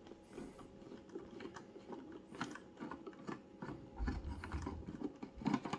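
Hand screwdriver turning a screw out of the plastic underside of a TC Helicon VoiceLive Extreme 3: faint irregular clicks and scraping of the tip in the screw head, with a low bump about four seconds in.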